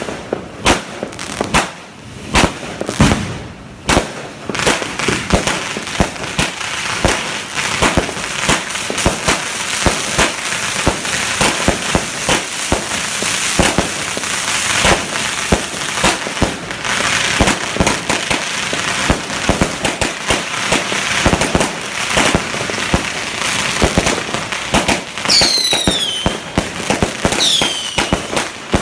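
Aerial fireworks going off close by: a rapid, continuous run of bangs and crackling, with two falling whistles near the end.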